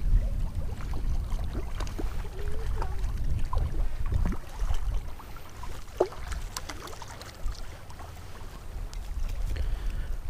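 Wind buffeting the microphone in a gusty low rumble, with faint scattered clicks and rubbing as a spinning reel is cranked to bring in a hooked trout.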